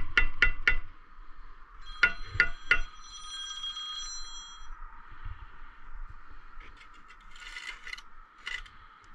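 Steel brick trowel striking brick: three sharp taps with a short metallic ring in the first second, then three more about two seconds in. Softer scraping of the trowel over brick and mortar follows near the end.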